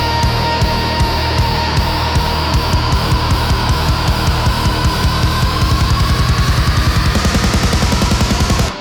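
Instrumental heavy rock: distorted guitars over drums, the drum hits quickening into a fast run, then the full band cuts off suddenly just before the end, leaving a quieter passage.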